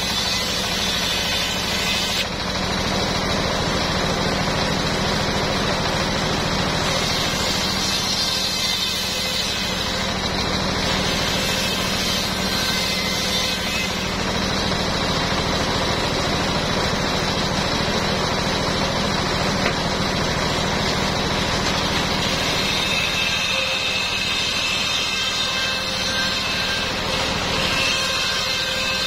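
Engine-driven circular sawmill running steadily with a constant hum, its blade ripping sengon (albasia) planks into beams and rafters, with the noise of the cut rising and falling as the planks are fed through.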